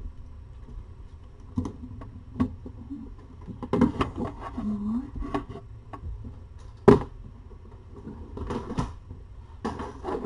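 Scattered sharp clicks and knocks in a small room, irregular and a few seconds apart, the loudest a single knock about two-thirds of the way through, with a brief low pitched sound near the middle.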